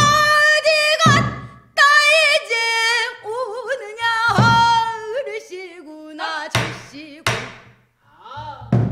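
A woman sings pansori in a strong, wavering voice with bending pitch, accompanied by strokes on a buk barrel drum. There are about six drum strokes, two of them sharp strikes close together about two-thirds of the way in.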